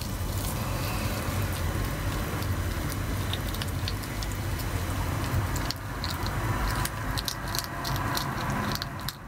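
Hedgehogs crunching dry pellet food: a rapid, irregular scatter of small crisp clicks and chewing over a low steady rumble.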